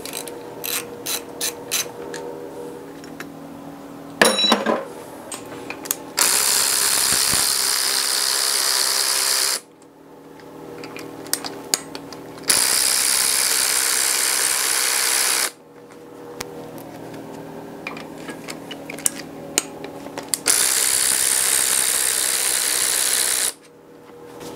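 A power ratchet running in three steady bursts of about three seconds each, backing out bolts on an engine's water passage housing, with clicks and tool knocks between the bursts.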